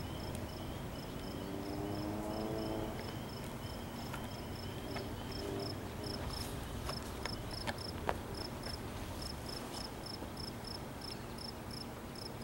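Crickets chirping: short high chirps repeated a few times a second, with a second, lower insect chirping more faintly during the first half.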